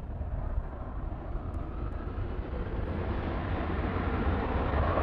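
Boeing 737-800's CFM56 jet engines running, a steady rushing noise over a low rumble that grows gradually louder.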